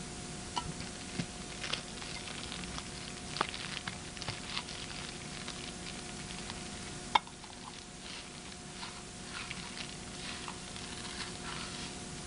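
Woven plastic sack being handled: crinkling and rustling with scattered light ticks, and one sharp click about seven seconds in. A faint steady hum runs underneath.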